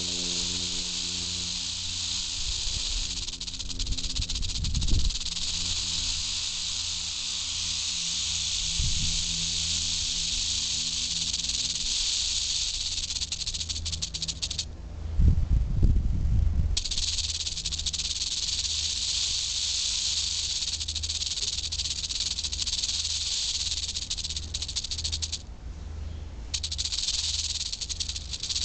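Western diamondback rattlesnake (albino) buzzing its tail rattle continuously as a warning, a steady high dry buzz that stops briefly twice, about halfway through and again near the end. A low rumbling thump comes a few seconds in, and a louder one during the first pause.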